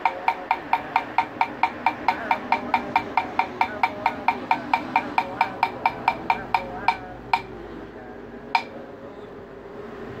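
Vietnamese wooden fish (mõ) struck steadily at about four to five beats a second, the hollow knocks slowing near the end of the roll and stopping, followed a second later by a single last strike.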